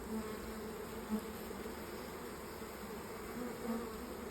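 Honeybees buzzing at an open hive crammed with a swarm: a steady hum, with a few single bees droning louder as they fly close past.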